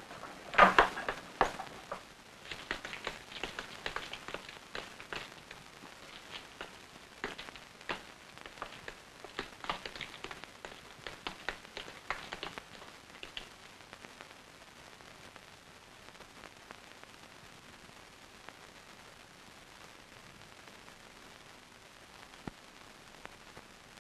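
A run of irregular small clicks and knocks, loudest about a second in, that thins out and stops about thirteen seconds in. After that only a faint steady hiss remains.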